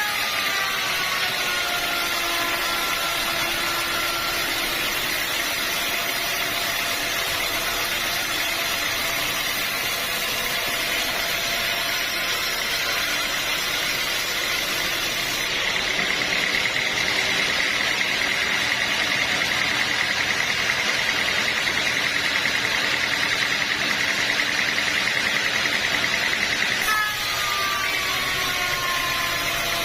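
Band sawmill running and cutting through a hard acacia log, a steady mechanical whine over sawing noise. Its pitch drops near the start and again near the end.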